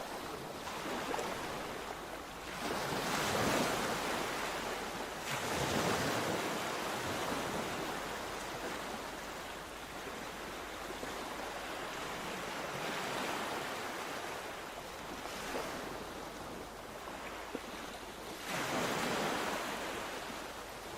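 Mediterranean sea waves breaking and washing on the shore, a continuous surf hiss that swells with each wave, about five louder surges in all, with some wind on the microphone.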